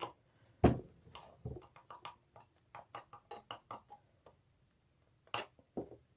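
Scattered knocks and light taps of kitchen items being handled on a table: one sharper knock about a second in, small ticks after it, and two more knocks near the end.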